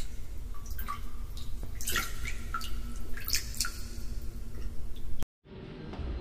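Water dripping and splashing in a bath, in irregular plinks and small splashes. It cuts off sharply about five seconds in, and acoustic guitar music fades in near the end.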